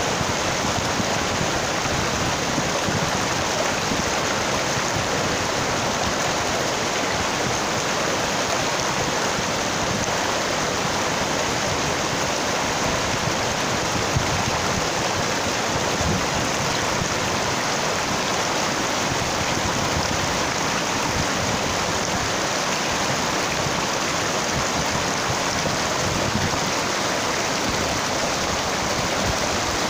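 A rocky mountain stream rushing over and between boulders, a steady, unbroken water noise.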